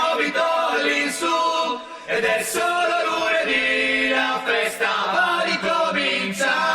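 Music: a group of voices singing unaccompanied in chant-like held notes, with no bass or drums.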